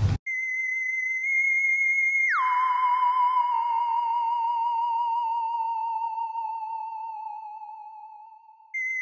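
Background music: a single wavering electronic tone, theremin-like, held high. A couple of seconds in it drops about an octave, then slowly sinks lower as it fades away. It starts again high just before the end.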